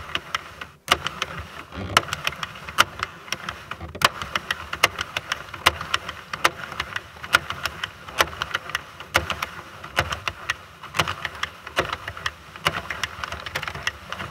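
Plastic needles of a Sentro 48-needle circular knitting machine clunking as it is cranked slowly round on the first, cast-on round of waste yarn. The sound is a rapid, irregular run of clicks and clunks, several a second.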